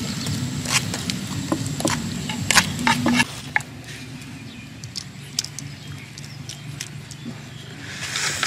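A spoon clicking and scraping against a wooden mortar as chilli sauce is stirred, then spooned out: quick irregular taps, thick at first and sparser after about three seconds, over a low steady hum.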